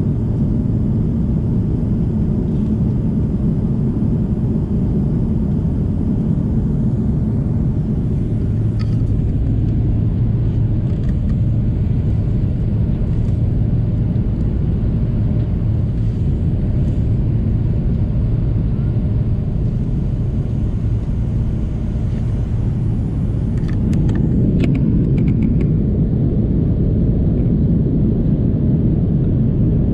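Steady in-flight cabin noise of an airliner: a low, even rumble that grows slightly louder near the end, with a few faint clicks.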